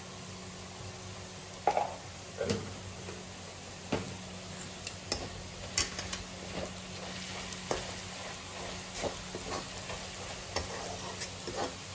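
Metal spatula scraping and knocking against a steel kadai while stirring onions frying in hot oil, over a steady sizzle. The scraping starts about two seconds in and goes on in quick irregular strokes.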